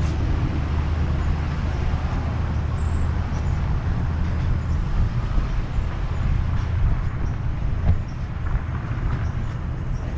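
Vehicle noise: a steady low rumble with hiss, easing slightly about eight seconds in.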